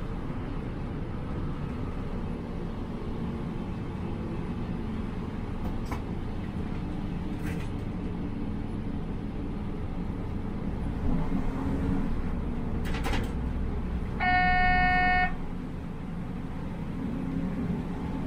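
Regional train running with a steady low rumble and a few faint clicks. Near the end a single horn blast sounds for about a second and is the loudest thing heard.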